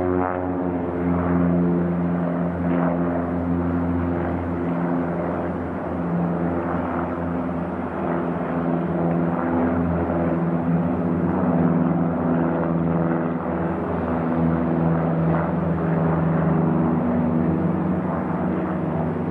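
Single-engine piston light aircraft's engine and propeller running, a steady drone that holds much the same pitch throughout.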